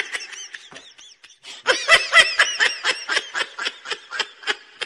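A person laughing in a rapid run of high-pitched giggles, about four a second, getting louder about two seconds in and trailing off near the end.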